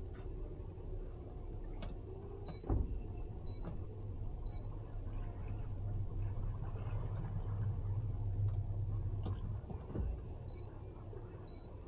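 Boat's outboard motor running at low speed, a steady low rumble that swells a little in the middle. A single knock about three seconds in, and a few short high beeps.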